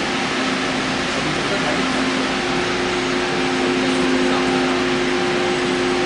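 Steady mechanical hum of a train standing nearby: a constant drone carrying a held mid-pitched tone, with no rise or fall.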